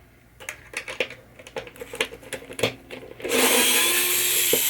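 Clicks and taps of small parts and hardware being handled, then a handheld power driver runs for about a second and a half before stopping.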